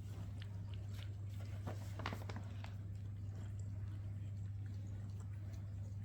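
A cat biting and chewing: a few faint crunchy clicks, bunched about two seconds in, over a steady low hum.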